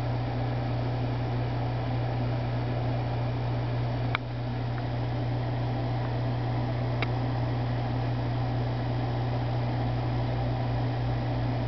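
Steady low hum under a constant hiss, with two brief clicks about four and seven seconds in.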